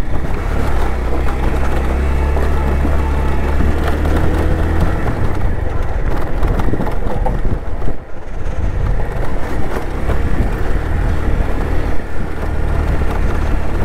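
Bajaj Pulsar motorcycle engine running on the ride, mixed with deep wind and road rumble, the sound dropping briefly about eight seconds in.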